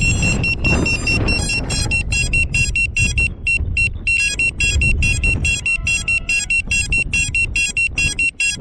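Rapid, high-pitched electronic beeping, several short beeps a second, over a low rumble of wind on the microphone.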